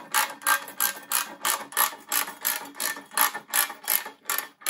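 Socket ratchet wrench clicking in quick, even strokes, about three a second, as it tightens the nuts on a case-splitting plate.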